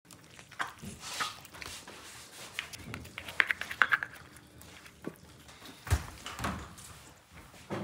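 Hands handling meat-stuffed casing and wet intestines on a steel worktable: scattered small clicks and knocks, a quick run of clicks a little past three seconds in, and a dull thump about six seconds in.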